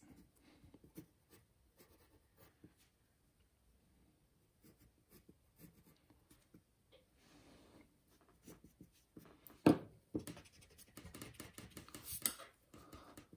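Faint scratching of a graphite pencil sketching on drawing paper, in short strokes. A sharp bump about ten seconds in, and a louder paper rustle near the end as a hand presses flat on the sheet.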